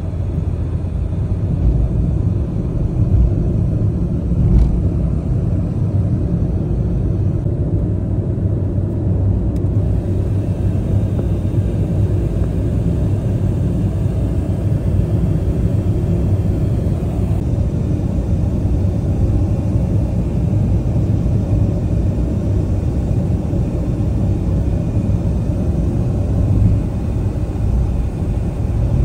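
Steady low rumble of road and tyre noise inside a car cruising at motorway speed.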